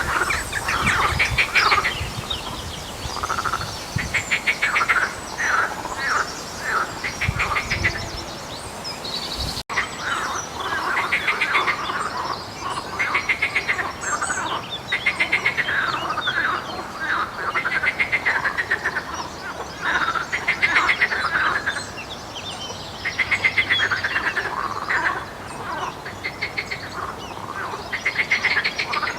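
A chorus of frogs giving rattling croaks, each a fast train of clicks, repeated about every second or two by several callers. A low rumble in the first third stops at a cut about ten seconds in.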